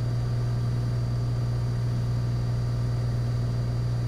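Steady drone of a Cessna 182 Skylane's piston engine and propeller in flight during the climb to 4,500 feet, one low, even note with no change in pitch.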